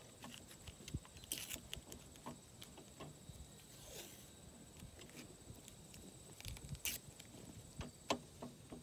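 Painter's tape being pulled off the roll and torn, in a few short rips, with faint scattered handling taps in between.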